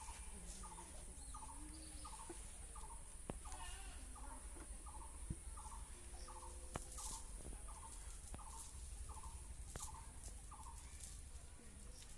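An animal calling in a long, steady series of short pulsed notes, about two a second, over a steady high-pitched hiss, with a few faint clicks.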